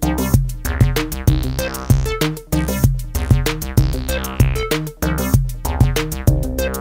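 Electronic background music with a steady drum-machine beat and synthesizer.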